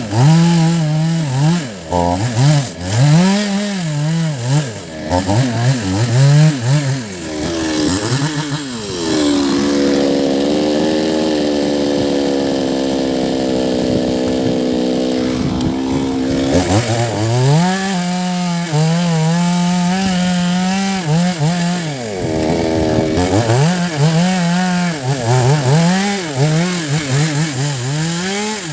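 Two-stroke chainsaw cutting into the roots of a large rain tree stump, its engine revving up and falling back over and over. Near the middle it holds steady at a lower pitch for about seven seconds before revving again.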